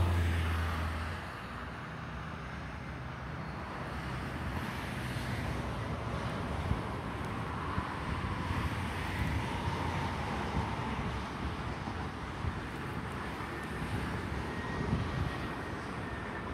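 Jet engines of an Airbus A320 on final approach, heard from afar as a steady rumble with a faint high whine that grows clearer near the end. A louder low rumble fades out about a second in.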